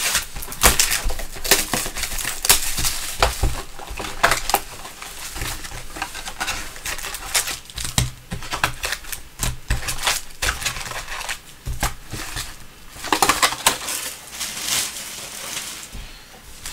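A 2017-18 Panini Donruss Optic basketball hobby box being opened by hand and its foil-wrapped card packs pulled out and set down in stacks: irregular rustling, scraping and clicking of cardboard and pack wrappers.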